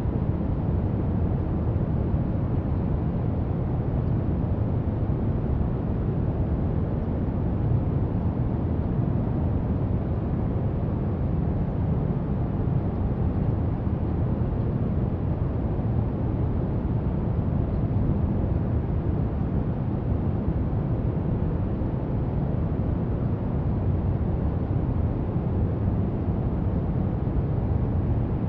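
Brown noise: a steady, unchanging hiss weighted heavily toward the deep end.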